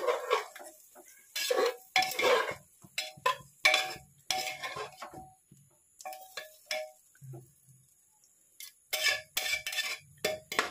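Metal tongs and a wooden spatula clinking and scraping against the inside of an aluminium pressure cooker pot as chicken pieces in masala are stirred and turned. The clinks come irregularly, busiest from about a second and a half to five seconds in and again near the end, some with a short metallic ring.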